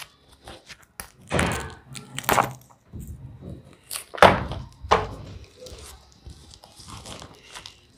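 Clear hard-plastic oil pastel case being handled and opened: several dull knocks and clicks as the case is turned over and its lid catch is worked.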